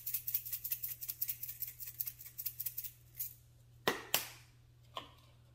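Black pepper grinder being twisted, a fast, even run of dry clicks at about eight a second that stops about three seconds in. Two sharp knocks follow close together, then a fainter one.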